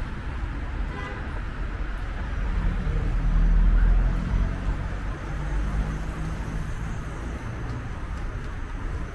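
Street traffic noise: a steady low rumble of passing cars that swells louder for a second or two about three seconds in.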